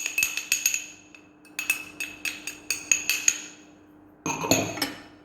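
A spoon clinking and tapping against a ringing container as ground garlic is knocked into it, in three quick runs of taps.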